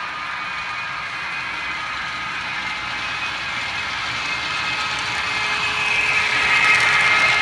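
Model electric locomotive's motor and gears whirring and its coal hopper wagons rolling on the track, a steady mechanical whine that grows louder as the train approaches and is loudest near the end.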